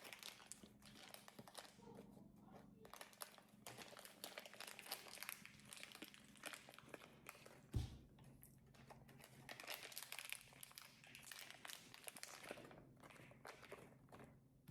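Faint crackling and popping of slime with foam balls mixed in, squeezed and pulled by hand, with one thump about eight seconds in.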